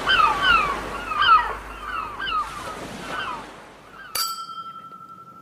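Birds calling in short falling cries over a hiss of surf, fading out after about three seconds. About four seconds in, two champagne glasses clink once and ring on with a clear, steady tone.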